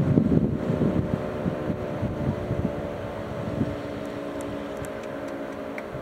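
Fire-station house siren sounding a steady, many-toned note during its test, slowly fading. Wind buffets the microphone during the first second.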